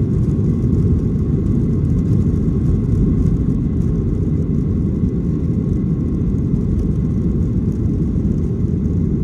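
Boeing 737-800's CFM56 jet engines running with a steady, loud, low rumble and a faint steady whine above it.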